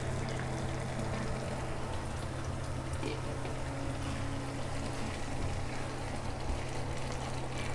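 Lentil and bottle gourd curry bubbling at a simmer in a pan, with a spatula stirring through it in the second half. A steady low hum runs underneath.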